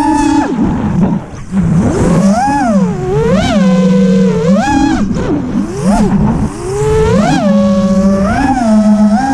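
Heard from on board, a 7-inch FPV quadcopter's four 2508 1200 kV brushless motors on a 6S battery spin three-blade 7-inch propellers with a whine that rises and falls in pitch again and again as the throttle is punched and eased. The sound dips briefly about a second and a half in.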